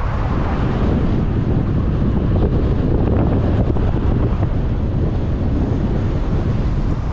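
Strong wind buffeting the microphone: a loud, steady, dense low rumble.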